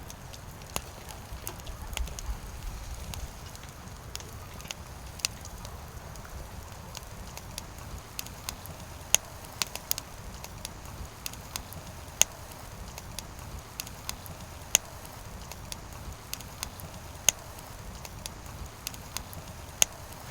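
Burning firewood crackling, with irregular sharp pops, a few of them much louder, over a steady low rumble.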